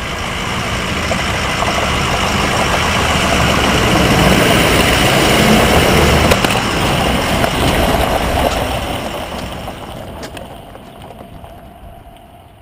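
A pickup truck's engine and tyres on a gravel road, growing louder as the truck approaches and passes directly overhead about halfway through, then fading as it drives away.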